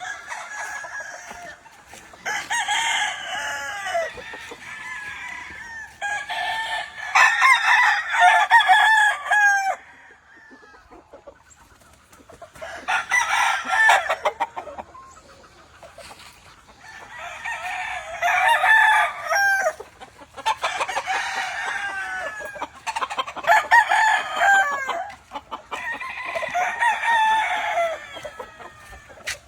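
Gamefowl roosters crowing repeatedly, one crow every few seconds, some crows overlapping one another.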